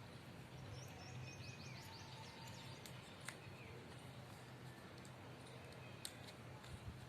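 Near silence: faint background with a steady low hum, a bird chirping a quick run of high notes a second or two in, and a few light clicks.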